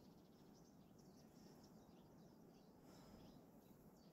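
Near silence, with faint bird chirps.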